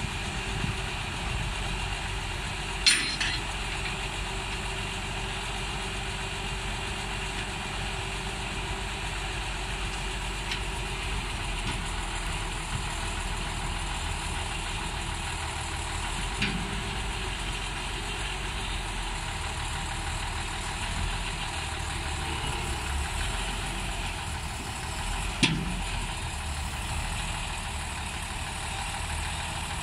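Old cable-operated lattice-boom crawler crane's engine running steadily as it lifts a long steel frame. Two sharp knocks break in, about three seconds in and again near the end.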